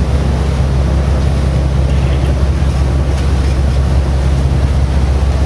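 A boat's engine running steadily under way, a constant low drone, with wind and water noise over it.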